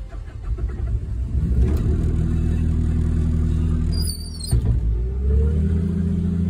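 Bobcat T870 track loader's diesel engine running after catching on a small squirt of starting fluid, building up to a steady run over the first couple of seconds, with a brief dip about four seconds in.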